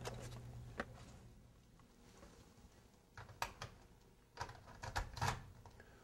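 Faint handling sounds: a few scattered clicks and light knocks, as of a plastic-packaged item being taken down. Under the first second and a half runs a low steady hum, which then fades out.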